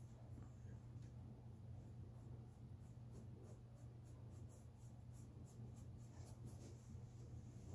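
Faint brush strokes on stretched canvas: a small paintbrush dabbing paint in a quick run of light, scratchy strokes, about three a second, starting a couple of seconds in, over a low steady hum.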